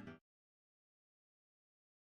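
Near silence: the last ringing notes of a guitar ensemble die away and cut off sharply a fraction of a second in, leaving dead digital silence.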